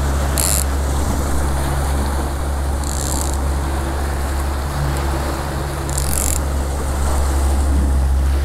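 Outboard motor running steadily at trolling speed, with water rushing in the boat's wake. Three short hisses come about three seconds apart.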